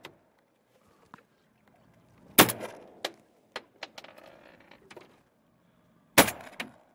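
Two shotgun shots fired from a small open boat at turrs, about four seconds apart, each a sharp crack with a short tail. Fainter clicks and knocks come between the shots.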